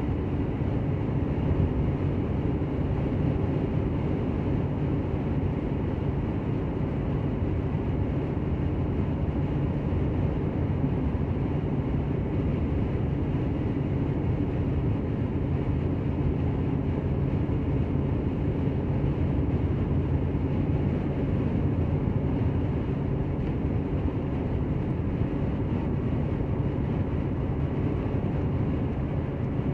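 Steady low road and engine noise of a car at highway speed, heard inside the cabin.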